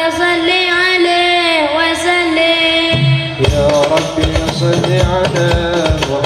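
Sholawat singing: one long melismatic sung line that bends and glides in pitch. About three seconds in, hadroh hand drums and a deep bass drum come in with a fast, steady rhythm beneath the held voice.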